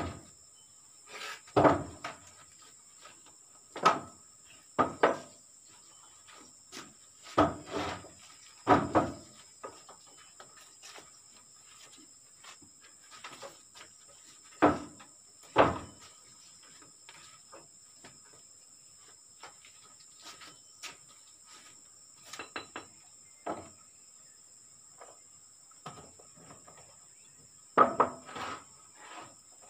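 Irregular knocks and taps of bricklaying, bricks and a trowel being set and tapped into mortar: about a dozen short knocks spread unevenly, some in quick pairs. A steady high insect drone carries on underneath.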